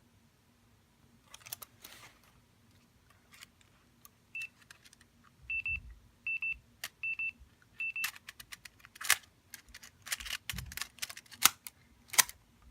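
Clicks and snaps from an old Panasonic digital-tape camcorder's buttons and cassette mechanism being worked to free a jamming tape. A string of five short, high double beeps comes from about four to eight seconds in, and the loudest snaps come near the end.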